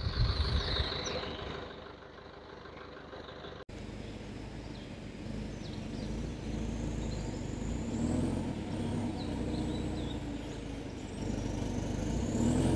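4x4 expedition motorhome truck approaching slowly, its engine running at low speed and growing louder near the end. Faint bird chirps sound above it, and the first few seconds, before the truck, hold only quieter outdoor ambience.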